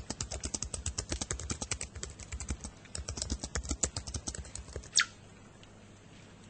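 Rapid, irregular clicking, several clicks a second, like typing, stopping after nearly five seconds. Right after it comes one short, loud sound that falls sharply in pitch.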